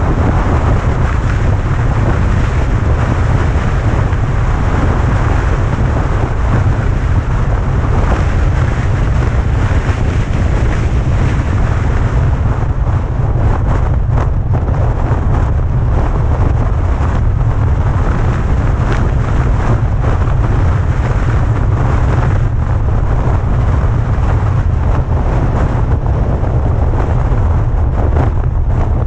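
Heavy, steady wind noise buffeting the camera's microphone on a moving vehicle, a loud low rumble that drowns out the engine and road sound.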